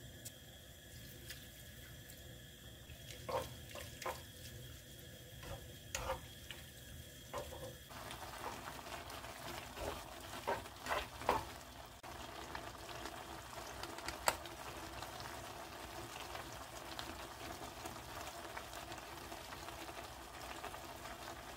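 Cream sauce simmering in a frying pan with spaghetti in it, a steady bubbling hiss that grows fuller about eight seconds in. Metal tongs tossing the pasta click against the pan now and then, most clearly a few times around the middle.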